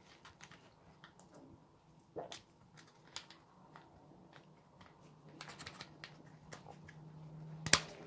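Black plastic cable drag chain and its mounting bracket clicking and rattling in the hands as the bracket is fixed to the chain's end at an angle, light scattered plastic clicks with one louder sharp click near the end.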